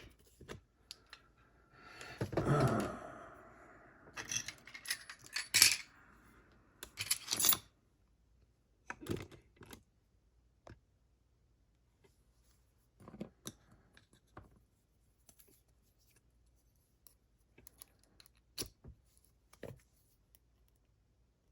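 Small metal lock parts clicking and clinking, scattered and irregular, with a brief rustle about two seconds in, as a picked lock is taken apart by hand.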